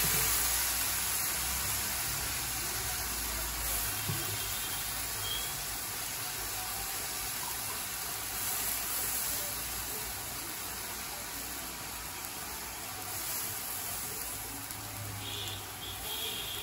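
Onions in hot oil sizzling in an aluminium kadai as handfuls of wet, freshly washed moringa leaves and flowers are dropped in, giving a steady hiss.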